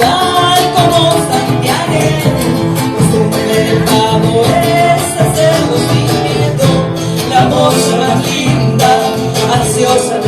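Argentine folk music, a gato, played on guitars with singing.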